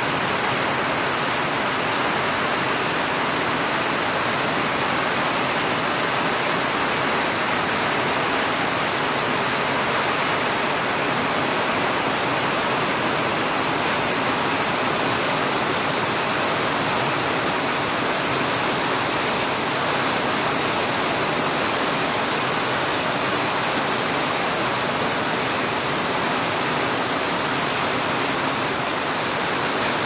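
Heavy rain falling steadily, a dense even hiss that does not let up.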